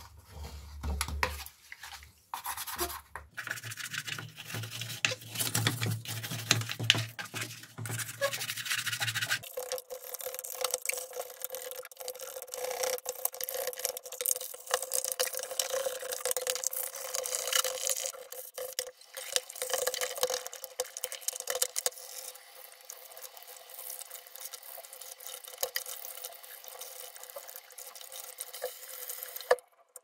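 Toothbrush bristles scrubbing a plastic washing-machine detergent drawer in quick, scratchy back-and-forth strokes.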